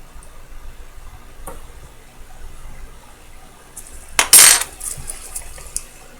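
Faint clicks of small tools working on a watch movement, then a short, loud clatter about four seconds in, followed by a few light ticks.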